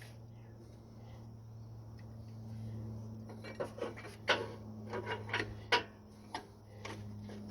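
Hand tools and small metal parts clicking and clinking irregularly during work on a car, over a steady low hum. The clicks start about halfway through.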